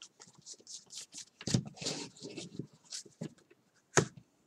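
A stack of baseball cards being flipped through by hand: a run of short, crisp flicks and slides of card on card. About four seconds in there is a single sharp knock as the stack is set down on the table.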